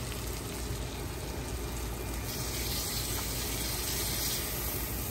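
Steady sizzling of hot fat in an enameled cast-iron skillet just out of a 450-degree oven, heard as an even hiss, with a low steady hum underneath.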